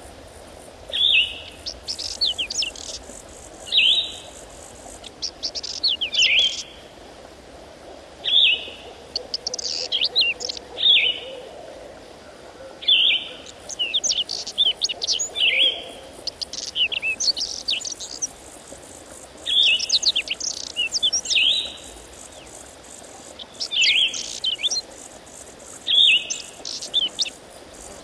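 Songbirds singing: a short phrase of quick high notes repeated every two to three seconds, with other calls in between.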